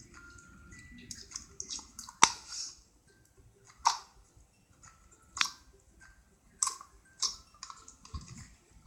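Clear slime being squished and poked by hand, giving off sharp sticky clicks and pops: about five louder ones spaced a second or so apart, with fainter crackles between.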